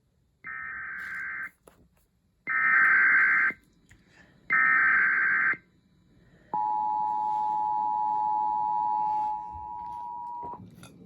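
Emergency Alert System broadcast tones announcing a tornado warning. Three one-second bursts of warbling SAME header data, about a second apart and the first softer, are followed by the steady two-tone EAS attention signal held for about four seconds.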